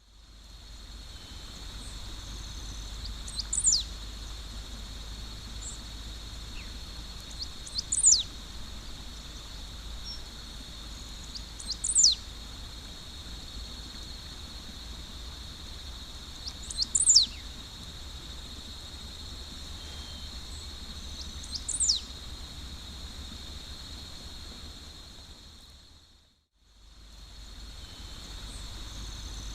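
Great pampa-finch (sabiá-do-banhado) singing: a short, sharp phrase that sweeps steeply down in pitch, given five times about every four to five seconds. Behind it runs a steady high-pitched buzz, and the sound fades out briefly near the end.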